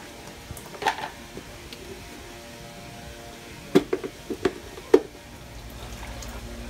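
Hard plastic blender jar clunking several times in quick succession as it is set down and seated on its base, then cold water poured from a glass into the jar of cut fruit. Faint background music runs underneath.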